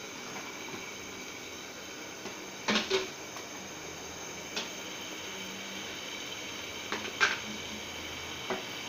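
Covered pan of fish curry simmering on an electric cooktop: a steady hum with a faint high whine. A few sharp clicks break it, loudest as two pairs about three and seven seconds in.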